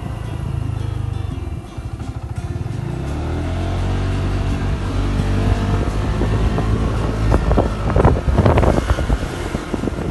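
Motorbike engine running while riding, its pitch rising from about two seconds in as it speeds up. Near the end come a few loud buffeting bumps on the microphone.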